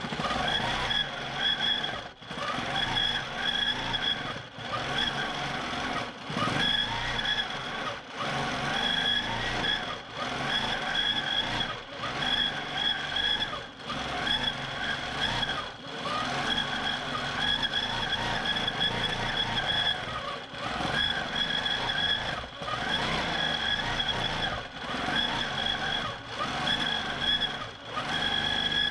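Q'nique 19 longarm quilting machine stitching in stitch-regulated mode: a steady high whine whose lower tones waver as the speed changes, with brief dips about every two seconds.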